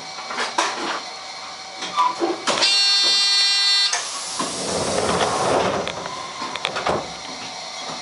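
Electric train's cab equipment: a loud buzzer sounds for just over a second, then compressed air hisses for about two seconds, with scattered clicks and knocks before and after.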